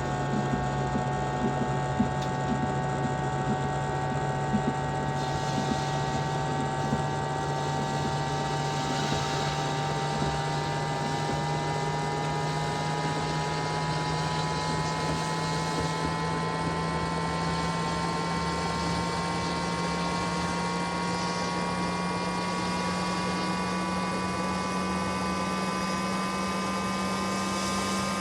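Microwave oven running: a steady low hum with several higher tones that rise slowly in pitch, and a few light clicks in the first few seconds.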